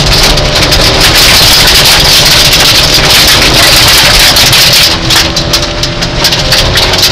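Rally car at speed on a gravel stage, heard from inside the cabin: the engine running hard under a dense crackle of gravel and tyre noise. About five seconds in it gets somewhat quieter and the engine's note comes through more clearly.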